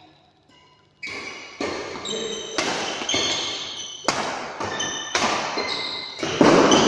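Badminton rackets striking the shuttlecock in a fast doubles rally: a quick run of sharp hits, about one every half second to second, starting about a second in and echoing in the hall, with short high squeaks between them and the loudest hit near the end.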